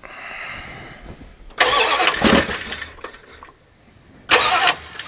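Rebuilt Dodge 318 V8 being started: the starter cranks, the engine catches and runs for about a second and a half, then dies. A second short burst follows near the end. It is not staying running after being primed with pumps of the gas pedal.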